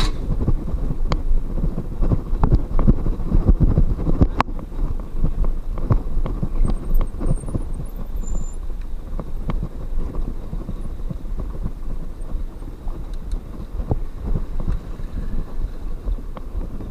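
Wind rumbling on the microphone while riding a bicycle, with many small knocks and rattles throughout.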